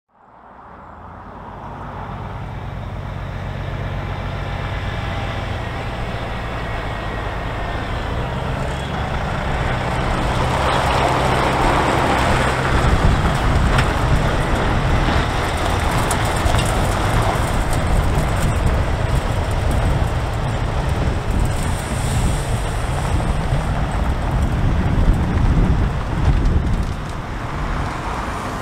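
Kenworth T909 prime mover's diesel engine running as the truck and its race trailer approach and pass at low speed, growing louder over the first few seconds. About halfway through the engine note changes and becomes louder and less even as the rig slows and turns in.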